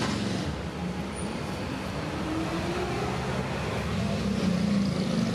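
Steady low rumble of street traffic, with a vehicle engine humming.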